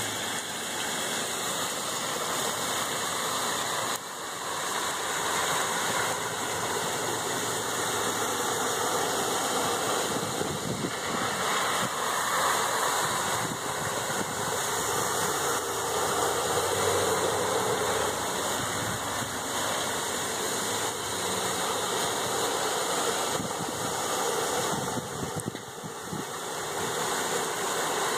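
A truck's engine as it drives through deep water on a flooded street, over a steady rush of heavy rain and running water.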